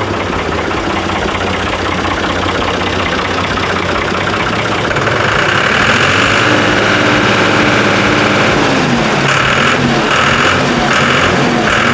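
Diesel engine of a new Ford 65 hp tractor running at idle, then running louder and higher about five seconds in, with the sound pulsing toward the end.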